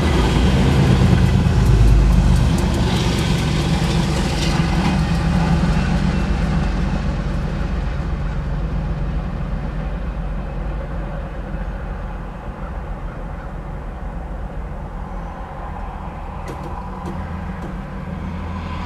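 Autorack freight train rumbling past over the rails, its wheels clattering, loudest in the first couple of seconds, then fading steadily as the last cars roll away, leaving a low drone.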